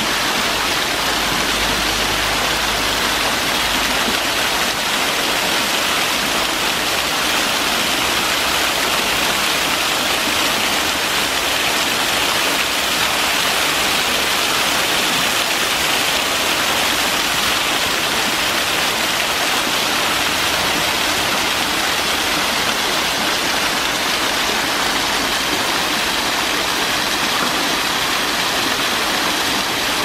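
Man-made waterfall: water pouring and splashing down a wall of stone columns in a steady, even rush.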